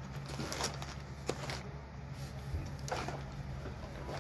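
Small household items and their packaging being handled: a few light clicks and rustles over a steady low hum.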